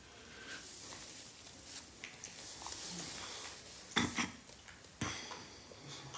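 Faint rustling from a person's hand and body movement, with a few sharp light clicks about four and five seconds in, over quiet room hiss.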